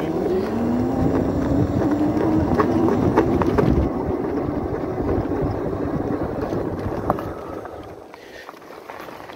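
Bafang 750 W rear hub motor whining under throttle, its pitch rising as the e-bike picks up speed and then holding steady, over tyre and wind noise. It dies down about eight seconds in as the bike comes to a stop.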